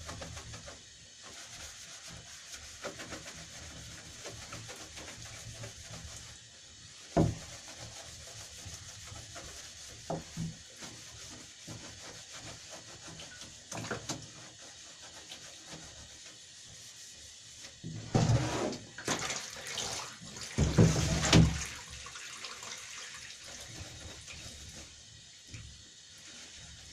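A sponge scrubbing a soaped rabbit-cage tray, with water running from a bath tap. A sharp knock about seven seconds in and two louder bursts of knocking and splashing around eighteen and twenty-one seconds in.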